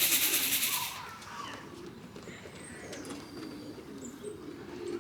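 Pigeons cooing, with a few faint high bird chirps. A loud, rapid rattling noise stops about a second in.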